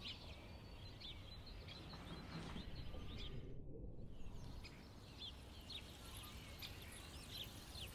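Faint outdoor background noise with small birds chirping now and then.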